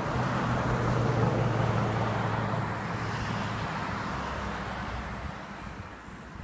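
A car driving past on a road, tyre and engine noise over a low engine hum. It is loudest about a second in and fades away over the next few seconds.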